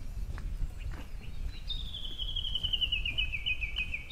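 A small bird singing a long trill of quick repeated notes that slowly falls in pitch, starting a little under halfway through. Under it runs a low steady rumble with a few soft taps.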